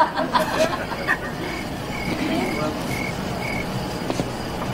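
Crickets chirping in a run of short, repeated chirps: the comedy sound effect for an awkward silence after a joke answer, heard from a film clip played over room speakers.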